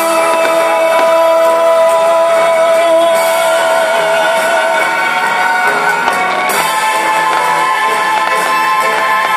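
Live rock orchestra music with a singer holding one long note with vibrato for about five seconds, the band playing on after it.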